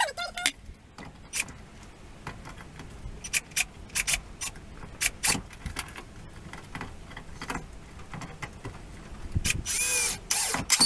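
Irregular taps, knocks and scraping from hand repair work with tools, with a short squeak right at the start and a longer squealing scrape near the end.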